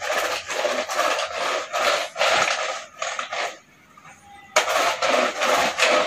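Manual, non-battery handheld roller brush sweeper pushed back and forth over a woven cotton rag rug: a rhythmic scraping rustle of about three strokes a second as it sweeps up dust, hair and threads. It stops for about a second past the middle, then starts again suddenly.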